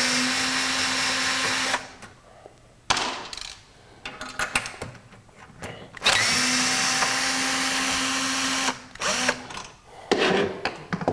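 A power drill with a Torx bit runs twice for about two and a half seconds each, backing metric bolts out of a scroll saw's cover. Each run is steady with a whine and ends abruptly. Between and after the runs there are light clicks and knocks.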